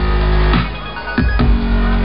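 Loud live electronic dance music in a dubstep style over a concert PA, with heavy deep bass and sustained synthesizer tones. The bass drops away about half a second in and comes back just over a second in.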